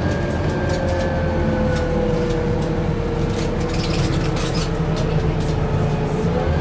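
A Scania E400 double-decker bus heard from inside the cabin while driving: a steady engine and drivetrain rumble with a thin whine that slowly falls in pitch, rising again near the end, over light rattling of the interior fittings.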